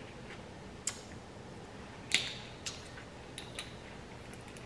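A few light clicks and taps as a fork is set down on a tray and a plastic water bottle is picked up and handled at the mouth. The sharpest click comes about two seconds in, with smaller ticks after it.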